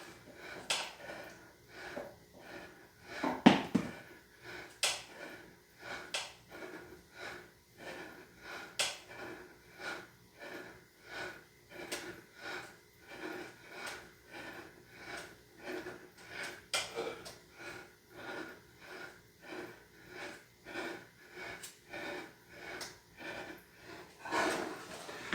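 A person breathing hard and fast with exertion during a bodyweight and dumbbell workout, about one and a half breaths a second, wheezy. A few sharp knocks break in, the loudest a low thump about three and a half seconds in.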